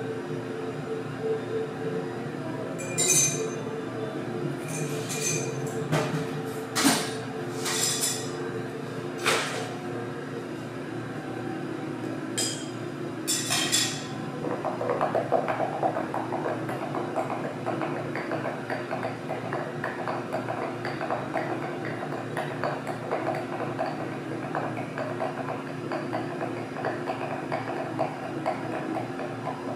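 Glassware and ice clinking, about seven separate sharp clinks in the first half, followed by a steady grainy noise, over soft background music with sustained tones.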